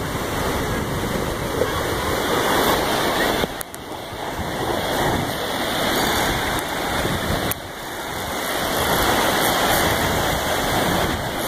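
Ocean surf washing up a sandy beach, a steady rush of breaking foam that eases briefly about three and a half and again about seven and a half seconds in.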